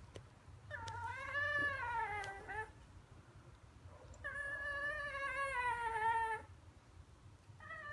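Small dog whining in long, drawn-out calls: two whines of about two seconds each, sliding down in pitch at the end, with a third starting near the end. The dog is asking to go outside.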